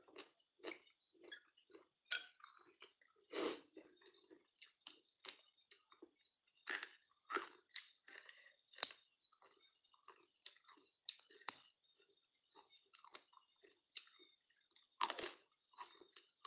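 A person chewing food close to the microphone: an irregular run of small wet mouth clicks, several a second, with two louder ones about three seconds in and near the end.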